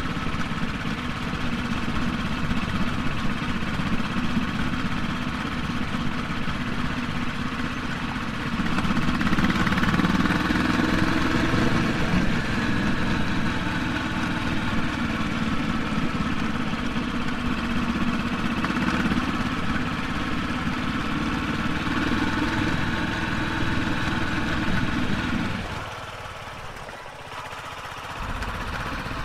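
Royal Enfield Classic 350's single-cylinder engine running as the motorcycle is ridden. It gets louder for a few seconds about nine seconds in, and the engine note drops away sharply near the end before partly picking up again.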